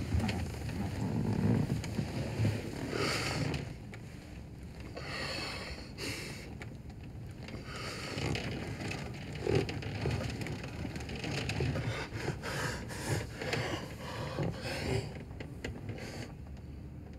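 Irregular rustling and scraping of clothing and bodies moving against each other, over a steady low rumble.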